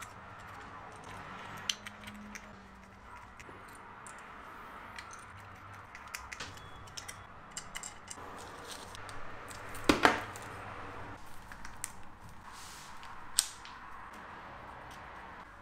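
Small clicks and light scraping of plastic parts being handled as an LED headlight's clear lens is turned and the housing is closed, with one sharper click about ten seconds in.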